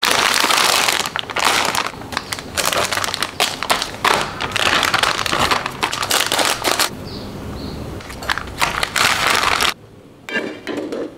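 Plastic and foil packaging of an instant tteokbokki kit crinkling and crackling as it is handled and opened, with a sauce sachet cut open with scissors. The crinkling breaks off abruptly near the end.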